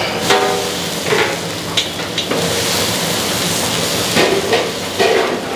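A long flat metal spatula scrapes and stirs through a masala sizzling in oil in a steel kadai, about one scraping stroke a second over a steady frying hiss. The onion and ginger-garlic paste base is being fried until its raw smell goes.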